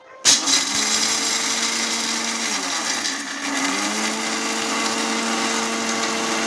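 Electric mixer grinder (mixie) running with roasted, skinned peanuts in its steel jar, grinding them coarsely. It starts abruptly, and its motor hum sags in pitch about two and a half seconds in, then climbs back up a second later.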